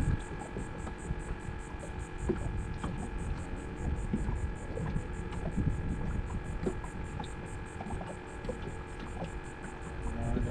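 A steady electrical hum made of several fixed tones, with a faint, evenly repeating high tick over it and uneven low noise underneath.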